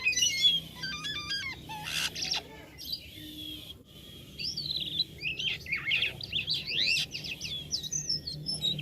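Jalak kapas starling singing: a varied run of quick high chirps and whistles sweeping up and down, easing off about three seconds in before a denser burst of chattering.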